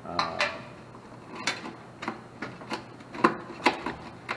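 Low-voltage control wires with crimped terminals being pulled and handled in a sheet-metal air handler cabinet: rubbing and scraping with a string of light, irregular clicks as the wires and connectors knock against the metal.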